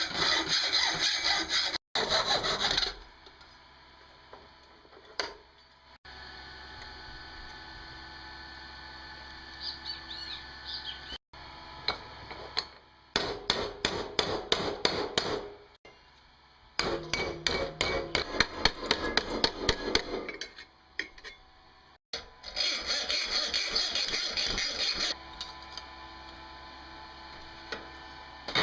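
Hand-tool workshop sounds in several short cut-together clips: bursts of rapid, evenly repeated strokes, several seconds each, between quieter stretches with a steady hum.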